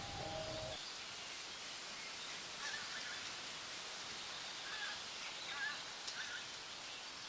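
Faint outdoor background noise with a few faint, short bird chirps scattered through it; a low hum cuts out in the first second.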